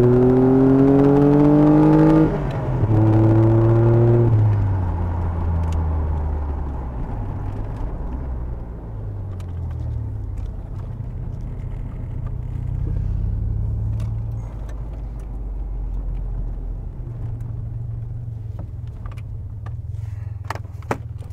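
Vauxhall X30XE 3.0 V6 24-valve engine with a 2.5-inch exhaust, revving hard under acceleration: the pitch climbs, breaks briefly for a quick upshift about two seconds in, pulls again, then eases off around four seconds in to a steadier, lower running note with road noise.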